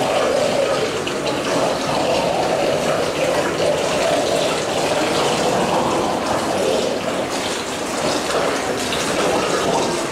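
Whirlpool tub's jets and air bubbles churning the water: a steady rushing, bubbling wash with no let-up.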